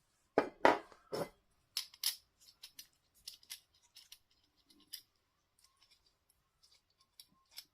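Small metal stove parts being handled: a few sharp metallic knocks in the first second or so, then light clinks and ticks as a gas valve and burner are worked into place.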